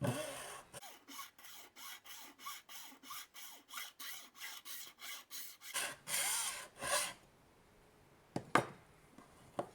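Cheap hacksaw sawing back and forth through the plastic case of a Nintendo Switch AC adapter, about three quick strokes a second, the last few louder. It stops about seven seconds in, followed by a couple of sharp knocks.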